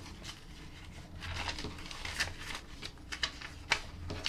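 Paper rustling as a stack of loose paper sheets and cards is leafed through by hand, with a few sharper flicks of paper.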